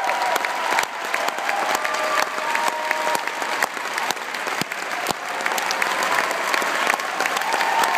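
Large audience applauding steadily, a dense mass of clapping hands, with a few voices calling out over it.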